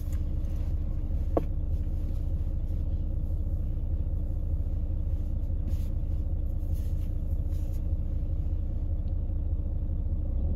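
Car engine idling, heard from inside the cabin as a steady low rumble with a faint hum. One short tick about a second and a half in.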